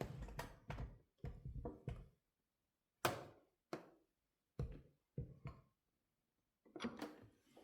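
Scattered short clicks and knocks, a dozen or so, from handling a knife and a bench vise while its side scales are squeezed on in the vise's soft jaws.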